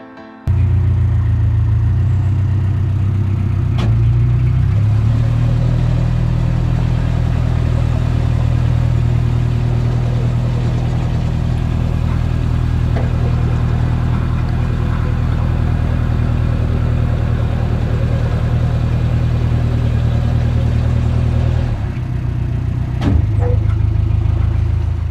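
Narrowboat engine running steadily as the boat cruises along the canal, its pitch shifting around four seconds in and again near the end.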